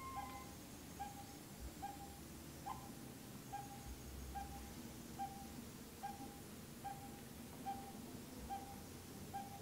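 A bird calling: one short hooting note repeated evenly, about every two-thirds of a second. A brief higher squeak sounds right at the start.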